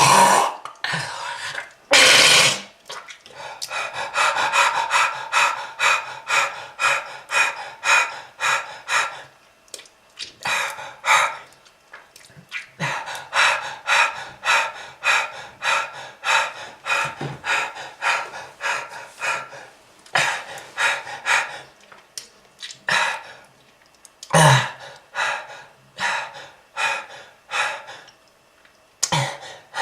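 A person coughing in fits and breathing hard, with long runs of short, quick breaths about two to three a second and a few louder single coughs. It is presented as a heavy smoker's cough.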